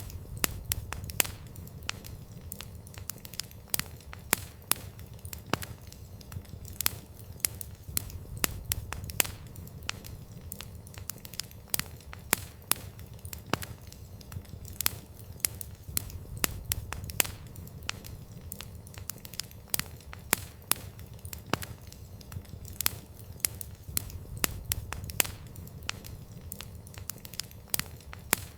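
Wood fire crackling: irregular sharp pops and snaps of burning logs, several a second, over a low steady rumble of the flames.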